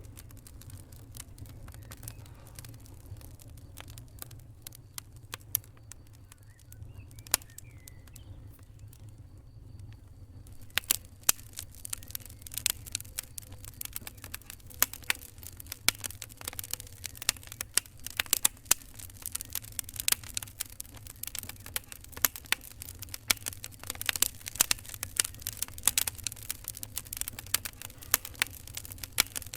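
Fire crackling with sharp pops, sparse at first, then denser and louder from about ten seconds in, over a steady low rumble.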